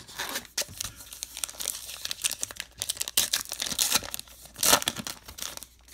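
A Topps Heritage Minor League baseball card pack being torn open by hand: the wrapper crinkles and tears in a run of crackles, loudest in one burst about three-quarters of the way through.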